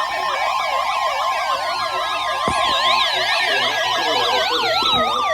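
Several overlapping electronic siren tones warbling up and down about three times a second, with slowly falling glides, over a steady alert tone near 1 kHz that stops about three seconds in.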